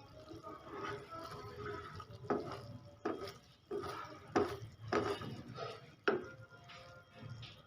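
A spoon or spatula stirring and scraping through thick liquid in a pot, in repeated strokes about two-thirds of a second apart.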